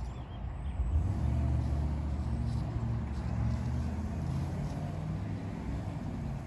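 U-Haul box truck's engine running as it drives away down the street, a low steady rumble that eases off slightly over the last few seconds.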